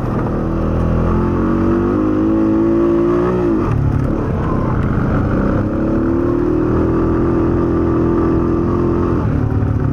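Honda ATV engine running under throttle while riding. The pitch rises, drops sharply about three and a half seconds in as the throttle eases, then rises again and holds before falling off near the end.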